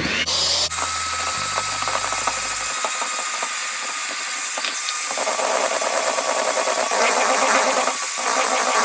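Handheld electric mixer running steadily with a high motor whine, its beaters whisking sponge-cake batter of beaten eggs and sugar as flour is added.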